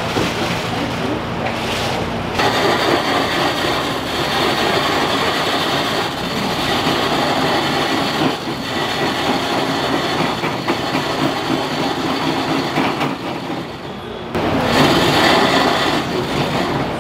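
Electric block-ice shaving machine running, its blade shaving a block of ice into fine snow-like shavings with a steady grinding noise. The grinding starts a couple of seconds in, breaks off briefly near the end and starts again.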